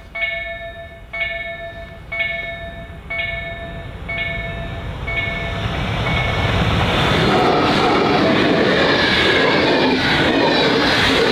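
Class 66 diesel locomotive with its two-stroke V12 approaching and passing at speed, hauling an electric locomotive and Intercity coaches; the rumble builds over the first half and becomes a loud, steady rush of wheels on rail as the coaches go by. Over the first half a ringing tone repeats about once a second and fades out under the train.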